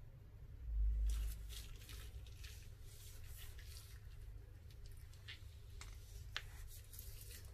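Soft squishing and crinkling of a plastic piping bag pressed and smeared through thick white paste in a glass dish, with a dull low thump about a second in and a small sharp click near the end.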